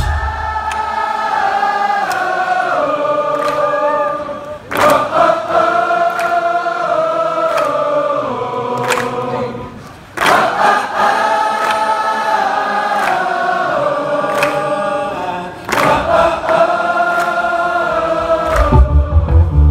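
A group of voices sings sustained chords in harmony, without bass or drums, in four long phrases of about five seconds each with a short break between them. Near the end the full band comes back in with heavy bass.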